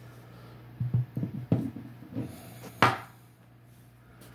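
A few light knocks and clicks of handling, the sharpest about three seconds in, over a steady low hum.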